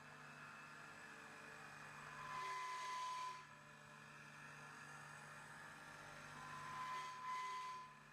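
CNC mill with a Huanyang VFD-driven spindle running a machining cycle, under a steady low hum. Twice, about four seconds apart, a second-long burst of cutting noise comes with a high steady tone.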